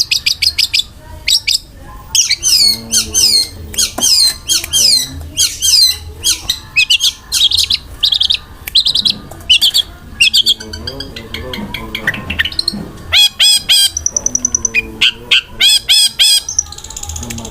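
Long-tailed shrike (cendet) singing a fast, unbroken song of quick sweeping notes and harsh squawks, broken by rapid-fire runs of repeated notes.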